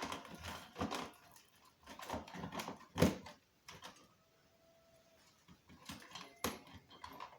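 Scattered clicks and knocks of objects being handled, with one louder knock about three seconds in and a quieter stretch after it.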